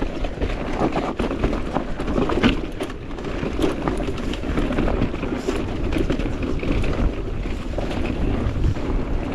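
Wind rushing over an action camera's microphone as a mountain bike rides down a dirt trail, with tyre noise and frequent small clicks and rattles from the bike.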